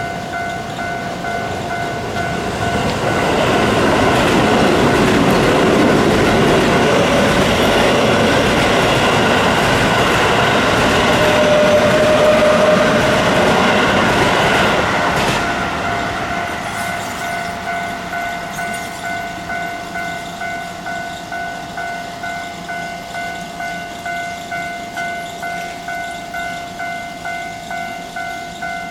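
Japanese level-crossing warning bell ringing in a steady, evenly repeating ding. A Keio Line electric train runs through the crossing, growing loud a few seconds in, with a brief wheel squeal about halfway through, and fades away after about 15 seconds while the bell keeps ringing.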